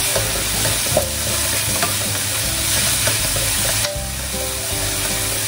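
Aromatics and black bean paste sizzling in hot oil in a nonstick wok. A spatula stirs and scrapes them around the pan, adding small scraping clicks over the steady frying hiss.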